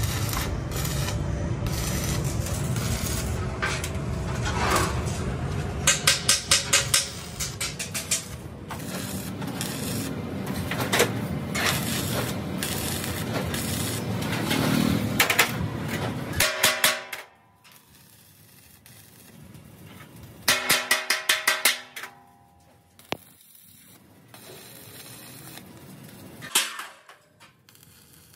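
Stick (arc) welding on the steel shell of an air-compressor tank: a steady hiss from the arc for about the first sixteen seconds, broken by two bursts of rapid clicking. After that it is much quieter, with another burst of clicks about twenty seconds in and one sharp click near the end.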